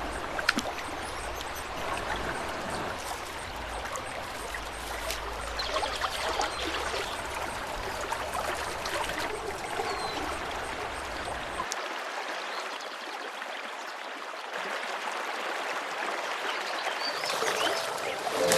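Water running steadily, like a stream or a pouring flow.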